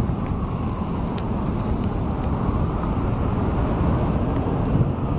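Steady low rumble of street traffic, with a few faint sharp ticks over it.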